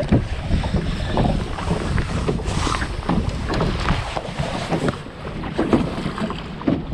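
Wind buffeting the microphone aboard a small bass boat on choppy water, with irregular small knocks and slaps of water against the hull.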